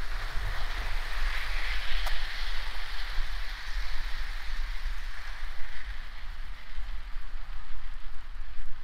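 A Hornby Live Steam OO gauge model of an LNER A4 Pacific running past, giving a steady hiss that is strongest in the first few seconds and then eases off. A gusting low rumble of wind on the microphone runs underneath, with one light click about two seconds in.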